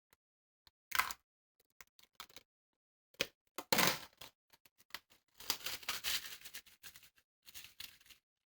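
Protective plastic film being peeled off a part, crackling and rustling in irregular short bursts, with a few small clicks.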